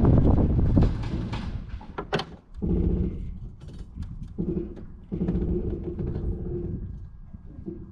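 Light single-engine propeller airplane's engine being shut down: the running engine dies away over the first two seconds or so, with a sharp click a little after two seconds. After that, quieter low humming patches come and go while the propeller stands still.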